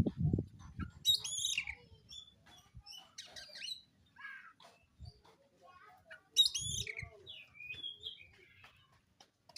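Black oriental magpie-robin (kacer wulung) singing in separate bursts of varied whistled and chattering phrases, loudest about a second in and again about six and a half seconds in. It is the song of a bird worked up to challenge a rival.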